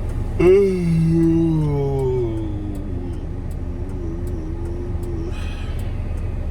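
Steady low rumble of a car's engine and road noise heard inside the cabin. About half a second in, a drawn-out pitched sound starts, glides down in pitch, then holds with a slight waver and stops about five seconds in.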